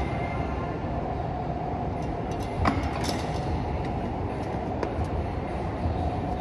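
Steady low mechanical rumble of gym room noise with a faint steady hum. A sharp clack from the exercise machine comes about two and a half seconds in, and a lighter one near five seconds.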